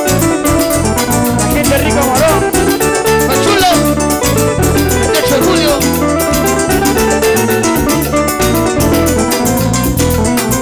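Live band playing with electric guitar, keyboard and drums over a steady dance beat.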